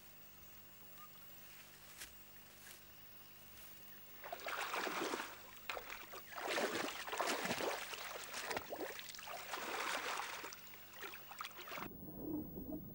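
Water splashing in several bursts as a jaguar wades through a shallow river. About a second before the end it cuts to a muffled, dull underwater sound.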